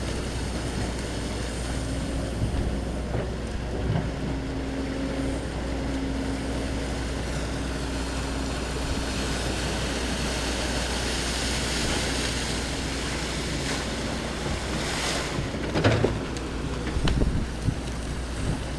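Steady rushing noise of wind and surf with the low drone of a Link-Belt excavator's diesel engine running underneath. A faint steady tone holds from about two seconds in to about nine seconds, and there is a brief louder rush near the end.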